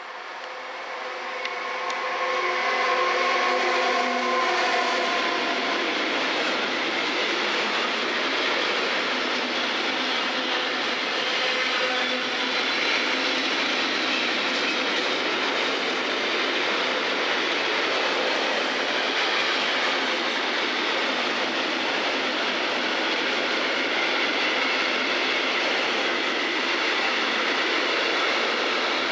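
Class 185 electric locomotive hauling a container freight train passing through at speed. It arrives with several steady tones over the noise, which grow louder over the first few seconds, and then the long string of container wagons rolls by with a steady rolling noise and wheel clatter on the rails.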